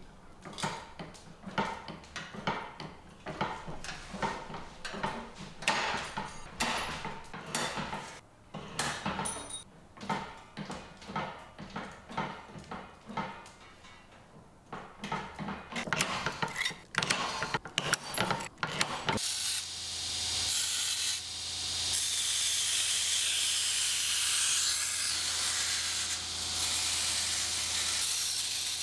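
Beverly throatless hand shear cutting stainless steel sheet into spatula blanks: an irregular run of crunching snips. About two-thirds of the way through, a belt grinder takes over, running with a steady hiss and a low hum as a blank's edge is ground.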